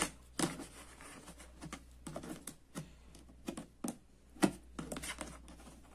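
Scattered, irregular light clicks and taps of small plastic makeup items being handled: sponge-tip applicators picked out of a hard black plastic tray insert. The loudest tap comes about four and a half seconds in.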